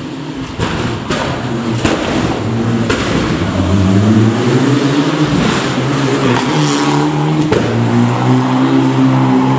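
Rally car engines at full throttle, revving up through the gears with the pitch dropping at each shift, and sharp cracks at several of the shifts. The first car is a Mitsubishi Lancer Evolution; after a cut a second rally car is heard.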